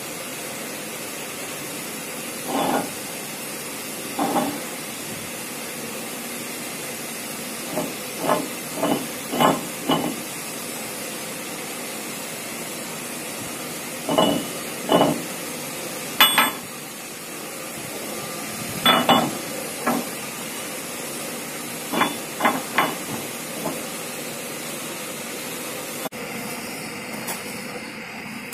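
Steady hiss under a series of short knocks, singly and in quick clusters of two to five, some with a brief metallic ring: a welded steel hydraulic-cylinder piston being handled and knocked against a lathe bed.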